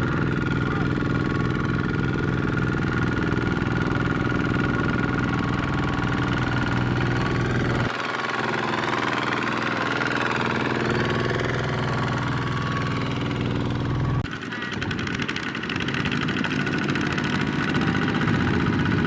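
Mini walking tractor's single-cylinder diesel engine running steadily, its sound shifting abruptly about eight seconds in and again with a brief dip about fourteen seconds in.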